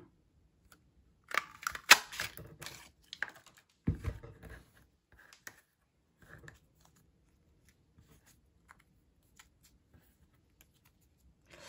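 Hand-held Stampin' Up! flower punch squeezed to cut stamped paper flowers, a quick run of clicks and snaps with the loudest about two seconds in. A thump follows about four seconds in, then only faint light clicks of paper pieces being handled.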